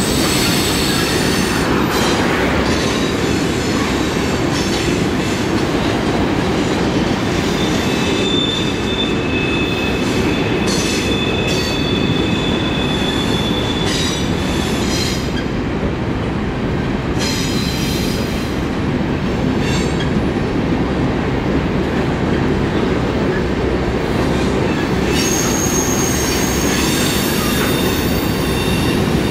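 Freight train cars rolling past: a steady loud rumble of steel wheels on the rails, with high, drawn-out wheel squeal coming and going over it.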